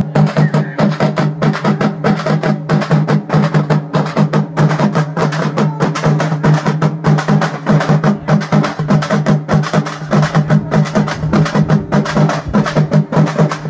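A group of large frame drums beaten with sticks in a fast, dense rhythm, over a steady low drone.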